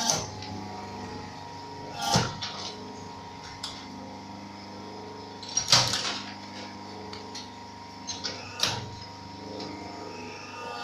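Automatic injection-moulding machine running with a steady hum, with sharp mechanical clanks about two, six and nine seconds in and a few lighter clicks between.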